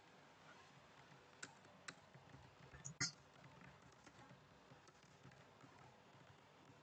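Faint computer keyboard typing over near silence: a few scattered keystroke clicks, the loudest about three seconds in.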